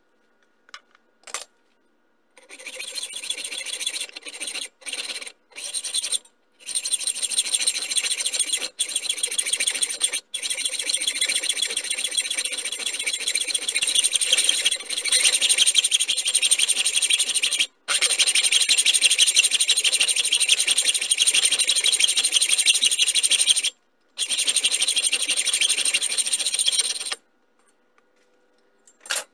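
Hand hacksaw cutting through a small metal workpiece held in a lathe chuck: a couple of light knocks, then a continuous metallic rasp from about two seconds in, broken by a few brief pauses, stopping a couple of seconds before the end.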